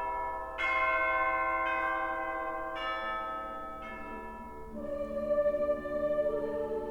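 Music playing through a pair of Energy C100B bookshelf speakers. Bell-like chimes are struck about once a second and ring out, and after about four and a half seconds they give way to sustained, wavering tones.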